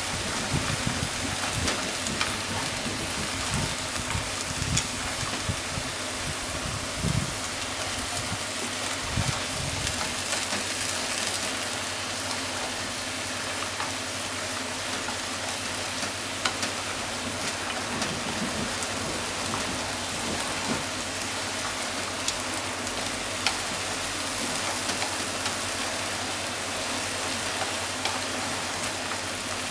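Bean sprouts and minced chicken sizzling in a frying pan while being stir-fried and tossed with chopsticks: a steady frying hiss, with a few soft bumps of the stirring in the first ten seconds or so.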